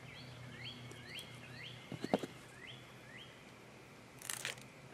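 A songbird whistling a run of short rising notes, about two a second, over a faint steady hum. A few sharp knocks about two seconds in and a brief scrape near the end come from the pouring basin being lifted off the sand mold with tongs and set over the sifting screen.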